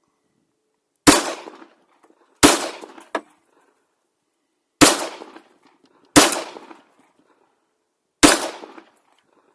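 Five single shots from a 1911 pistol in .45 ACP, fired at uneven intervals over about seven seconds, each shot ringing out briefly.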